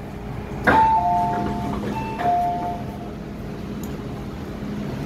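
A falling two-note electronic ding-dong chime sounds twice, about a second apart, from the MTR M-Train's onboard chime system, over the steady hum of the train car. A short knock comes just before the first chime.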